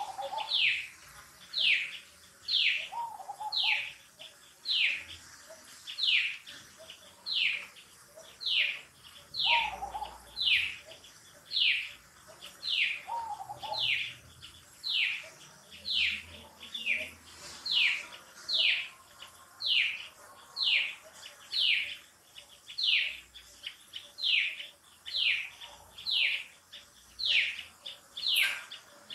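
A bird repeating a short, high call that falls in pitch, very regularly at about three calls every two seconds, with a few fainter, lower calls in between.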